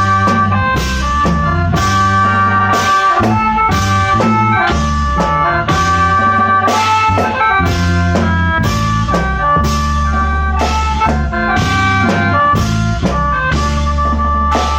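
A khaen wong prayuk, a Thai applied khaen ensemble, playing instrumental music. Sustained chords from the khaen mouth organs ride over a strong bass line, with a drum kit striking a steady beat about two times a second.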